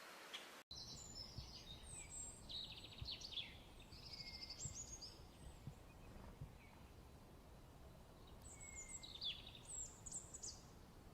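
Songbird singing in quick, varied phrases of high chirps and trills, in two bouts a few seconds apart, faint over a low background hiss.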